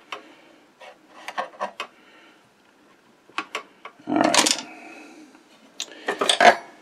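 Small metal clicks and clinks as the shuttle driving shaft and its bearing block are worked into place in a Singer 15-91 sewing machine's underside. The handling gets louder, with a denser clatter about four seconds in and again about six seconds in.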